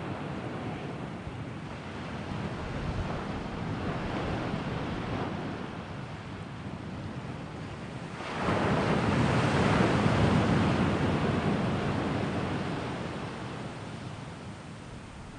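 Sea waves washing on the shore, with one bigger wave surging in about eight seconds in and slowly dying away.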